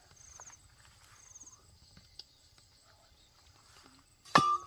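Faint insect chirping in short high trills about once a second, then near the end one loud, sharp sound with a brief ringing tone.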